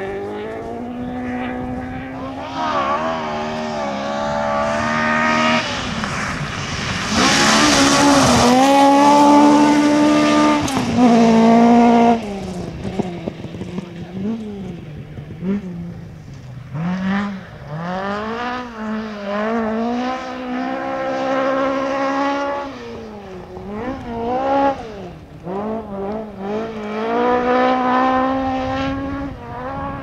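Historic rally car at full throttle on a gravel stage, its engine revving up through the gears with a sharp drop in pitch at each change. It is loudest about a third of the way in, then comes back more faintly in repeated rising pulls.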